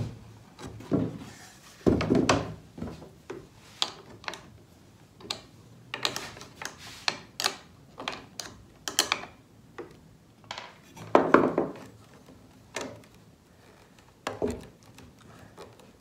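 Sheet-metal blade guard and its bracket being handled and worked loose on a wooden workbench: scattered knocks, clunks, rubs and light metal clinks, with a heavier thud about two seconds in and another past the middle.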